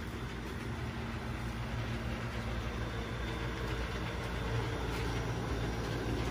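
Steady low mechanical hum of running machinery, with a noise haze over it.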